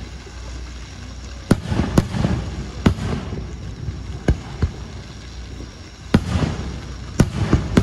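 Fireworks shells bursting: about eight sharp bangs at irregular intervals, the louder ones followed by a low rolling rumble.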